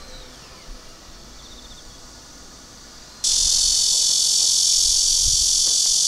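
Quiet outdoor air for about three seconds, then a loud, steady, high-pitched chorus of cicadas starts suddenly and carries on without a break.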